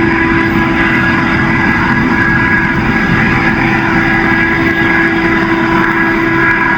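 Norfolk Southern freight train rolling past at speed close by: a loud, steady roar of steel wheels on rail with a steady tone running through it.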